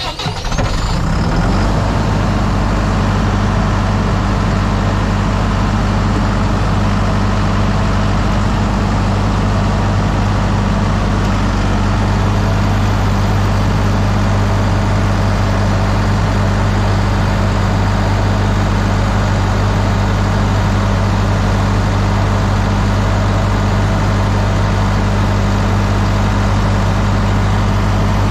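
Diesel generator set starting: the engine catches and runs up to speed within the first second or two, then runs steadily under load.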